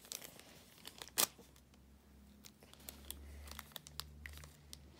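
Faint crinkling and tearing of a small plastic LOL Surprise accessory wrapper being picked open by hand, with scattered light crackles and one sharper click about a second in.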